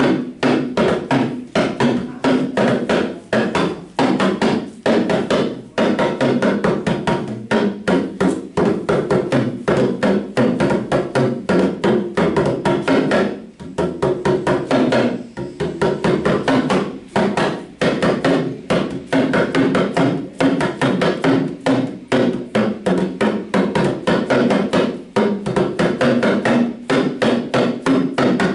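Talking drums (dùndún) beaten with curved sticks in a fast, steady rhythm, several strokes a second, with a few brief breaks.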